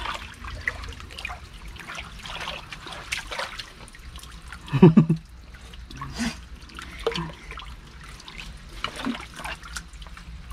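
Hands splashing and sloshing through shallow stream water, groping for catch, with many small irregular splashes and trickling. A brief louder sound stands out about halfway through.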